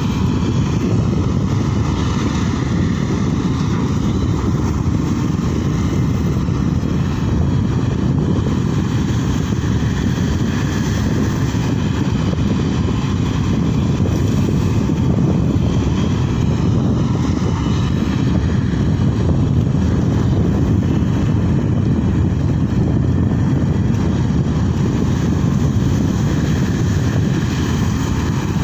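Sany SY140 excavator's diesel engine droning steadily while it digs and loads, with a faint whine that rises and falls as the hydraulics work, under a heavy low rumble.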